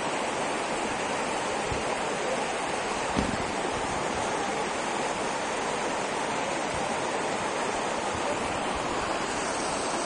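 Waterfall rushing steadily: an even, unbroken hiss of falling water, with one brief low bump about three seconds in.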